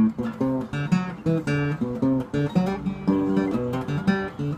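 Acoustic guitar fingerpicked in Hawaiian slack-key style, a steady run of single plucked notes about three or four a second, each ringing briefly.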